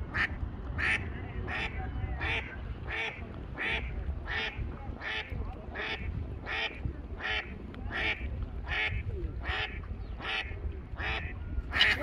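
A duck quacking over and over in a steady, even rhythm, about three calls every two seconds.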